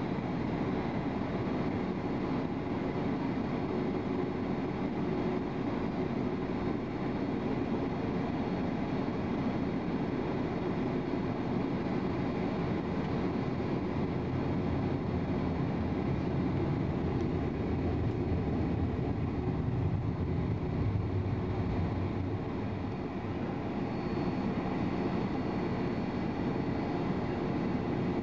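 Steady cabin noise inside an airliner waiting short of the runway: jet engines idling under a constant air-conditioning hum. A deeper rumble swells briefly a little past the middle.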